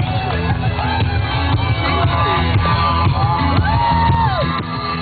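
Loud music with a steady low beat, with a crowd shouting and whooping over it.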